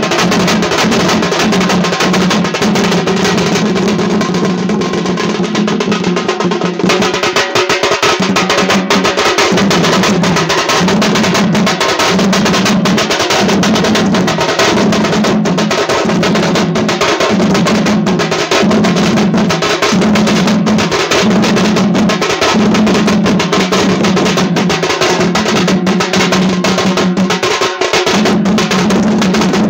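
Sing bajna folk band playing: fast, dense drumming under a low, steady note that is held at first and, from about seven seconds in, sounds in short notes about once a second.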